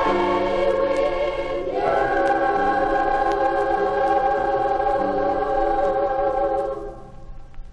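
Junior high school choir singing with piano and cello accompaniment, ending on a long held chord that fades out near the end.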